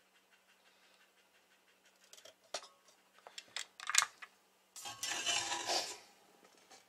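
Sheet-aluminium amplifier cover clicking and knocking as it is lifted off the chassis, with one sharp knock about four seconds in, then about a second of metal scraping and rubbing as it is set down.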